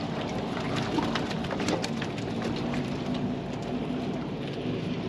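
Sea water lapping and splashing against the hull of a small drifting boat: a steady hiss full of small crackling clicks.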